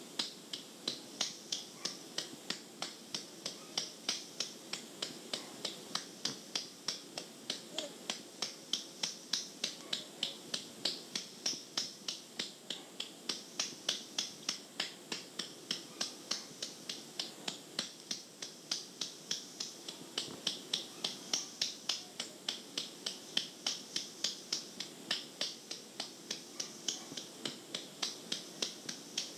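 Steady rhythmic patting on a baby's back to bring up a burp, about three pats a second, with no burp coming. It is heard through the hiss of an old cassette recording.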